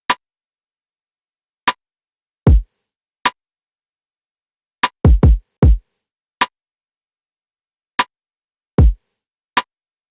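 Sparse electronic drum beat from the film's score. A short sharp click sounds about every one and a half seconds, with deep kick-drum thuds that drop in pitch in between, one of them a quick triple. There is silence between the hits.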